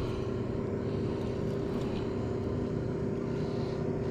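A boat's motor running with a steady hum, holding one even pitch.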